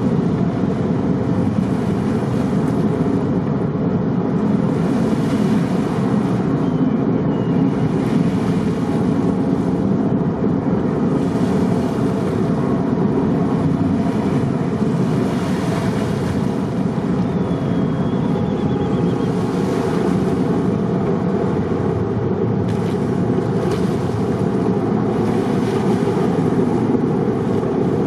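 Steady low drone of a car ferry's engines, with wind and the wash of water over it; the hiss swells every few seconds.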